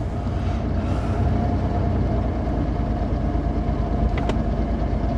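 Pickup truck's engine and road noise heard from inside the cab while driving: a steady low rumble with a thin, steady whine over it, and a short click about four seconds in. The engine is running rough, which the driver calls really shaky and says doesn't sound good.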